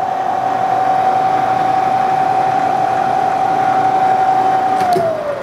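Spindle of a Bridgeport EZ-Trak CNC knee mill running in its low speed range, a steady whine. Near the end the pitch falls as the spindle begins to wind down.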